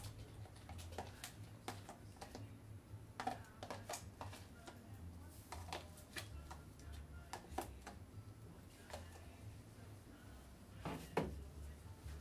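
Scattered light clicks and knocks of a utensil against a dish while a creamy topping is spread over a food tray, over a low steady hum. There is a louder knock near the end.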